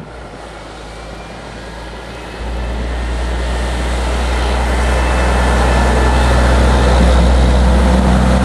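Snowplow dump truck's diesel engine drawing near and passing, growing steadily louder from about two seconds in, with a rushing noise from its front blade pushing snow.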